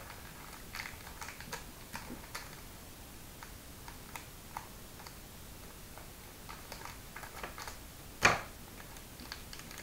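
Scattered light crinkles and clicks of a foil blind bag being handled and cut open with scissors, with one louder sharp click about eight seconds in.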